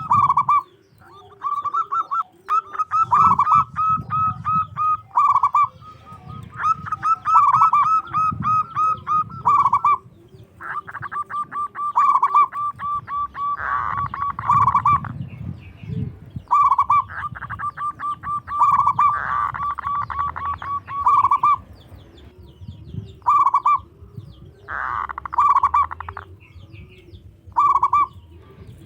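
Zebra dove (perkutut) singing loudly: repeated bursts of rapid rolling coos, each lasting one to three seconds, with short gaps between, and fainter lower cooing underneath.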